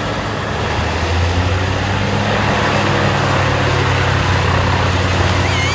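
Morbark 40/36 drum chipper with its Cat diesel engine running steadily: a deep, even engine drone under a rushing noise. A warbling high tone comes in near the end.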